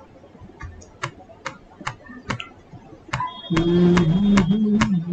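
Regular computer clicks, about two a second. From about three and a half seconds in, a louder low droning tone that wavers in pitch joins them, with a thin high whine above it.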